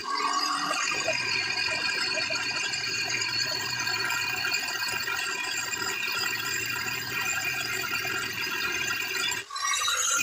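Steady mechanical rattling that runs on without a break, with a brief dip in level about nine and a half seconds in.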